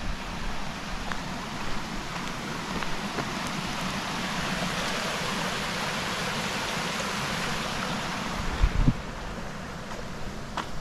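Shallow floodwater running across a trail and trickling over rocks: a steady rushing hiss that swells in the middle and eases toward the end. A couple of brief low thumps near the end.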